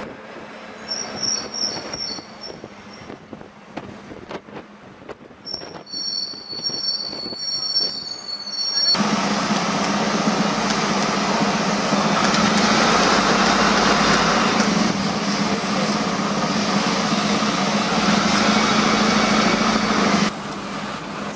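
Traffic and bus noise heard from the open top deck of a sightseeing bus. For the first nine seconds there are high squealing tones over quieter street noise. Then a loud, steady rush of engine and road noise with a low hum starts suddenly and drops off shortly before the end.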